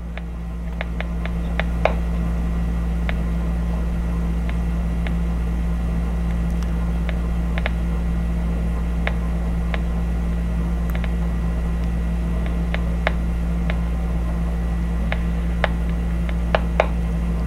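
Channel Master 6506 six-transistor AM radio at full volume, tuned across the band with no station coming in: a steady low drone that swells over the first two seconds, with scattered clicks of static. It picks up nothing, a poor-reception fault the owner sets out to cure by replacing its capacitors.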